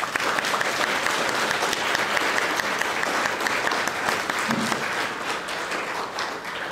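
An audience applauding: a dense, steady run of clapping that thins out slightly near the end.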